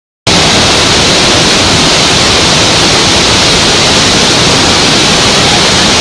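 Loud, steady rush of water falling over a waterfall, an even roar with no breaks, starting abruptly a quarter of a second in.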